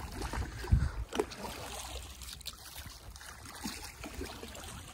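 Water trickling and lapping against an inflatable boat being rowed, with a soft low knock about a second in.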